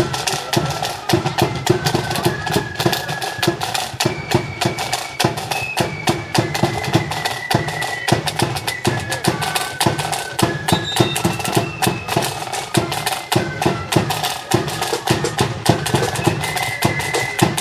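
Marching flute band playing a tune while on the march: a melody on flutes over rapid side-drum rolls and steady bass-drum beats.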